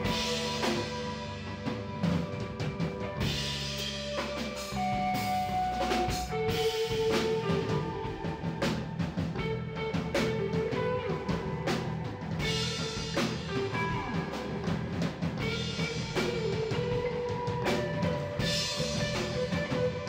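Live band playing an instrumental passage: electric guitar playing held melody notes over electric bass and a Gretsch drum kit keeping a steady beat.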